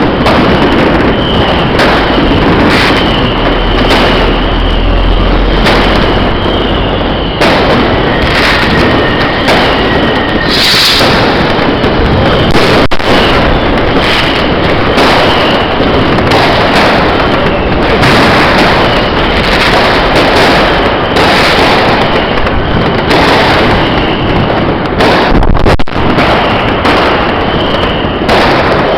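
Fireworks and firecrackers going off in a dense, unbroken barrage of overlapping bangs and crackles, loud throughout, with a brief high whistle about ten seconds in.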